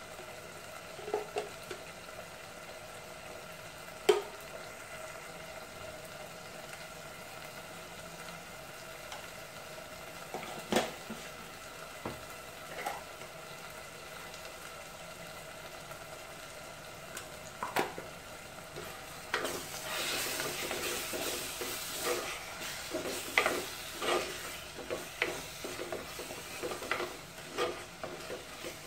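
A few isolated knocks in the first two-thirds, then from about two-thirds in a wooden spatula stirring and scraping prawn masala in a clay pot, with repeated knocks over the sizzle of the frying masala.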